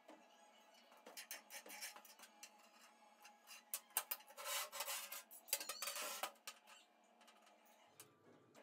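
Workshop handling noises from small metal workpieces: scattered light clicks and rubbing, with a louder stretch of scraping about four to six seconds in.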